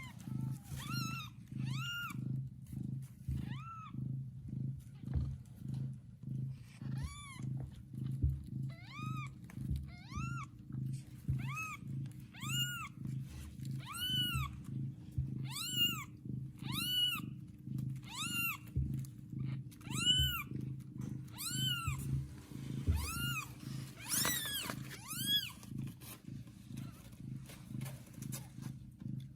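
Newborn kitten mewing over and over, thin high cries that rise and fall, about one a second and bunched together a few seconds before the end, over a steady low cat purr.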